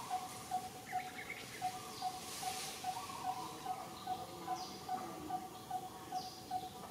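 Outdoor wildlife ambience: one note repeated steadily, about two and a half times a second, with a few faint high chirps over it.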